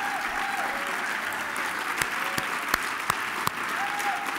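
Audience applauding: a dense, sustained ovation, with a handful of loud, sharp claps close by in the middle.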